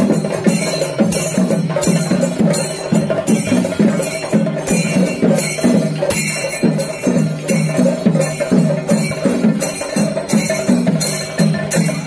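Traditional percussion music with drums and cymbal strikes on a steady, driving beat.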